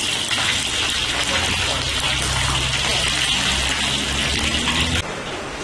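Fish frying in hot oil in a wok, a steady loud sizzle with a low hum underneath; both cut off suddenly near the end.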